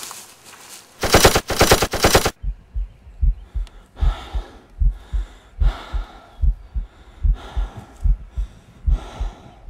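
A burst of rapid machine-gun fire, about nine shots in just over a second, near the start. It is followed by a steady, low heartbeat-like thumping under heavy breathing.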